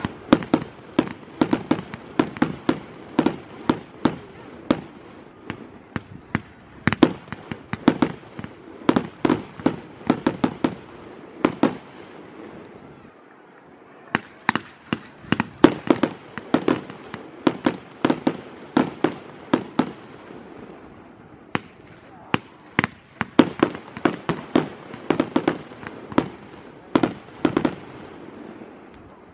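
Fireworks display: a rapid, continuous barrage of sharp bangs from aerial shells bursting, several a second. There is a short lull about halfway through, then the barrage resumes.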